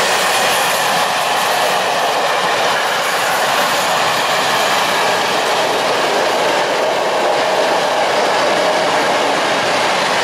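Freight train of open coal wagons hauled by an ET22 electric locomotive rolling past close by: loud, steady noise of steel wheels running on the rails as the wagons go by.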